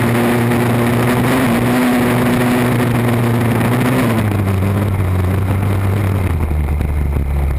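Mini ATV engine running hard at steady revs, then slowing, its pitch falling from about four seconds in.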